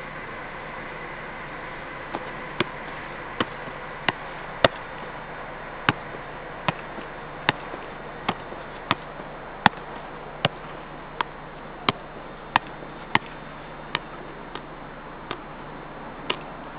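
A football being kept up: about twenty sharp taps of the ball against foot, knee and chest, a little over one a second, starting about two seconds in, over a steady hiss.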